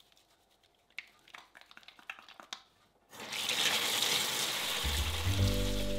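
Soapy hands rubbing together with small wet squelches, then a kitchen tap running about three seconds in, water pouring steadily over the hands into the sink. Background music comes in near the end.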